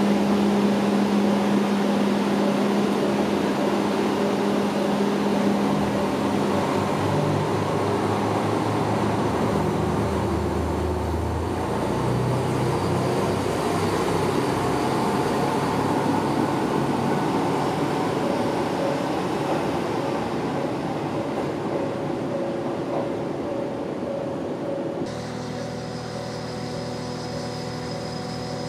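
JR Kyushu KiHa 200 series diesel railcar pulling out under power: its diesel engine note steps up in pitch as it gathers speed, over wheel and rail noise. Near the end the sound changes abruptly to the steady hum of a standing electric train.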